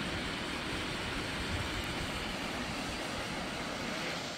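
Steady rushing of a waterfall and rocky stream, with a flickering low rumble of wind on the microphone.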